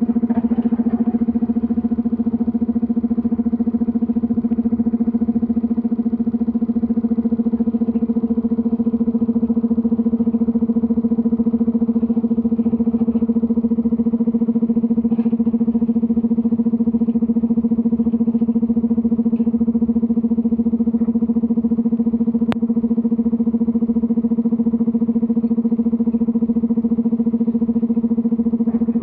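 Komatsu PC210LC-10 hydraulic excavator's diesel engine running at a steady working speed: a constant drone that neither rises nor falls as the machine digs and loads, with one sharp click about three-quarters of the way through.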